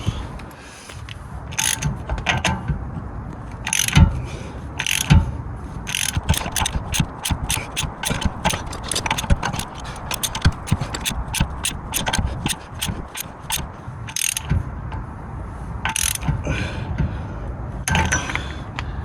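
Hand ratchet wrench clicking in quick runs of strokes, with a few separate knocks of metal tools and parts.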